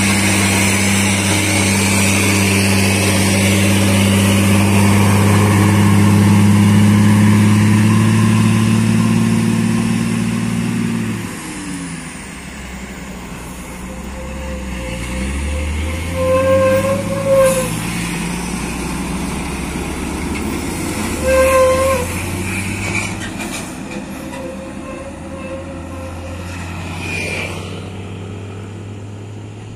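A heavily loaded truck's diesel engine labouring uphill in low gear, a steady deep drone close by that falls away about eleven seconds in as the truck pulls past. In the second half a vehicle horn sounds in short blasts, twice around the middle and once more a few seconds later, over lighter passing traffic.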